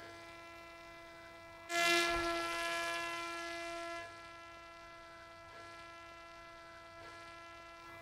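Parrot Disco fixed-wing drone's electric motor and propeller rushing past about two seconds in, then fading over about two seconds as it climbs away after a hand launch. A steady electrical-sounding hum runs throughout.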